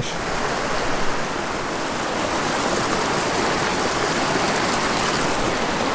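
Swift river current rushing steadily between and over boulders in a white-water riffle.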